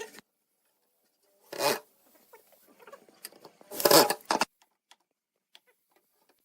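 Two short rustling scrapes about two seconds apart, the second louder and ending in a few sharp clicks, followed by faint scattered clicks.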